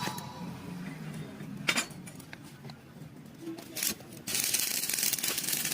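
A few light clinks of steel parts being handled, then about four seconds in an electric welding arc strikes and runs as a steady crackling hiss.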